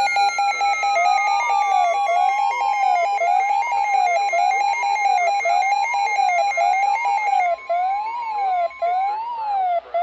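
Several NOAA weather radios sounding their tornado-warning alerts at once: a siren-like tone rising and falling about once a second, over steady rapid beeping and a held alarm tone. The alarms cut off near the end.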